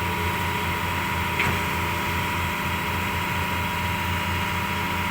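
Heavy diesel engine idling steadily with an even low throb, and one short click about a second and a half in.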